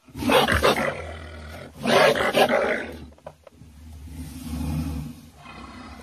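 A large animal roars loudly twice, about a second and a half apart, then gives a quieter, lower growl.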